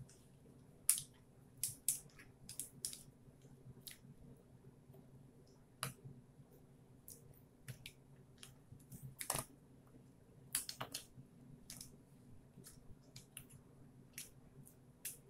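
Irregular clicks and taps as a plastic canning tool pushes raw zucchini chunks down into a glass mason jar, plastic and vegetable knocking against the glass, with a few louder knocks about a second in and around nine and eleven seconds. A faint steady hum lies underneath.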